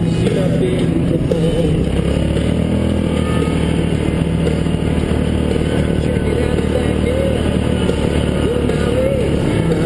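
ATV engine running steadily under load on a trail ride.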